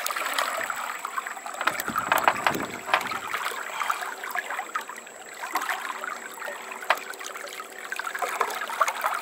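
Water sloshing and splashing at a boat's side as a large snook is held in the water to revive it before release, with many small, irregular splashes.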